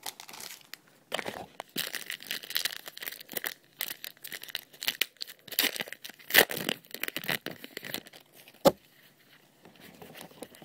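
A 2010 Panini Rookies & Stars football card pack's wrapper being torn open and crinkled by hand: an irregular run of ripping and crackling, with a single sharp tap near the end.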